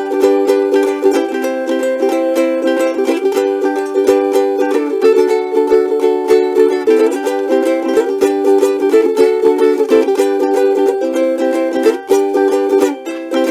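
Concert-scale cigar box ukulele, built from an MGB Guitars kit in an Arturo Fuente cigar box, strummed steadily in chords that change every second or two. It sounds loud and projecting for such a small, shallow box.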